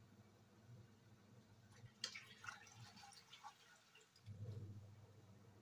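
Metal slotted spoon stirring lamb pieces in a pot of broth: faint clinks and drips of liquid over a steady low hum, which grows louder about four seconds in.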